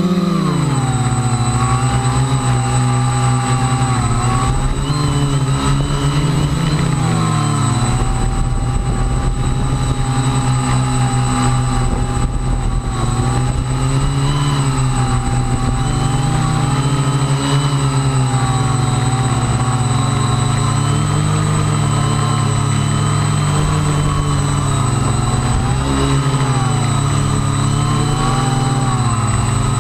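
Electric motors and propellers of a radio-controlled quadcopter running continuously. Their pitch rises and falls every few seconds as the throttle changes, over a steady thin high whine.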